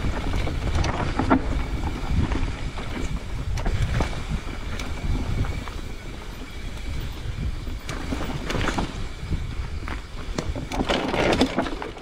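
Mountain bike riding down a dirt trail: wind buffeting the microphone and tyres rumbling over the ground, with scattered rattles and knocks from roots and bumps through the bike.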